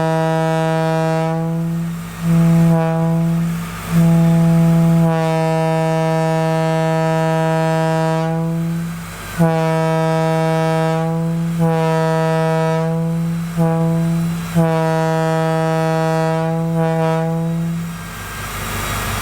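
WABCO E2 locomotive air horn blowing a series of long and short blasts, stopping about 18 seconds in.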